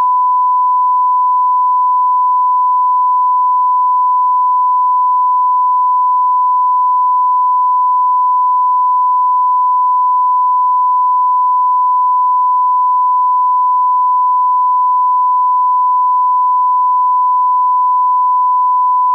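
A continuous electronic beep: a single pure tone held at one steady pitch, without a break or change.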